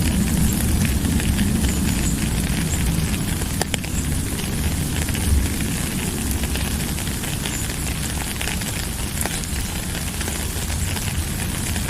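Steady rain falling, an even hiss of many drops with a constant low rumble underneath and a few sharper drop ticks here and there.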